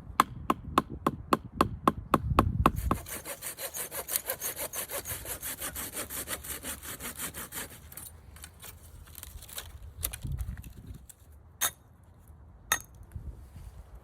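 Wood being worked by hand: a run of sharp, evenly spaced strikes, then fast rhythmic sawing strokes on wood that fade out. A few scattered knocks and clicks follow near the end.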